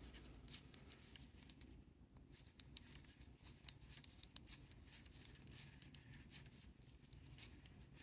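Metal knitting needles clicking faintly and irregularly as stitches are knitted.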